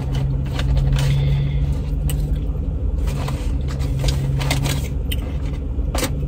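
A car engine idling, heard as a steady low rumble and hum inside the cabin, with scattered short clicks and rustles from handling the food and container.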